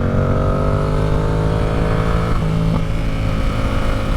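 Yamaha R7's parallel-twin engine under way, its pitch climbing slowly as it pulls, then dropping about two and a half seconds in at an upshift and running steady after.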